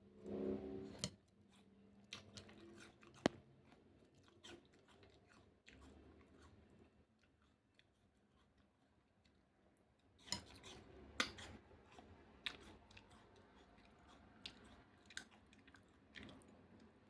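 A person chewing crunchy food close to the microphone: irregular sharp crunches and small wet clicks, busier about ten seconds in. There is a brief louder low sound at the very start.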